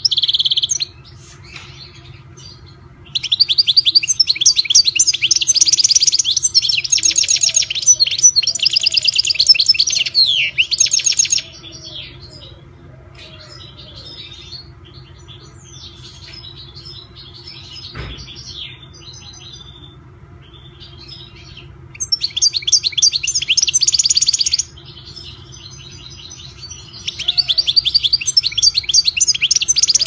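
European goldfinch singing: long phrases of fast, twittering trilled song lasting several seconds each, with quieter gaps of scattered short chirps between them. A single sharp click comes about halfway through.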